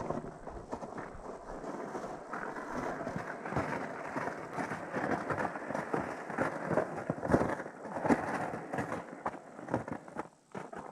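Plastic sled scraping over crusted snow as it is towed, mixed with boots crunching through the snow. It grows louder as it passes close and drops away near the end.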